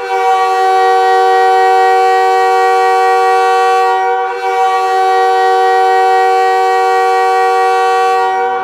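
Montréal Canadiens' arena goal horn sounding two long blasts of a steady multi-note chord, each about four seconds, with a brief break between them: the signal of a Canadiens goal.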